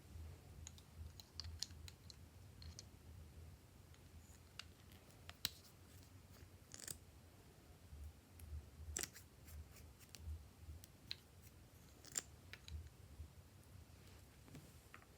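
Glossy slime being mixed and pressed by hand, giving quiet, irregular small clicks and pops from trapped air, over a faint low hum.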